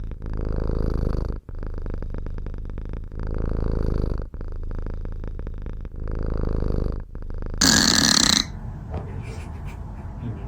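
A cat snoring, a rattling, purr-like snore that swells and eases with each breath, a full breath about every three seconds. About three-quarters of the way in, a brief loud rush of noise cuts across it.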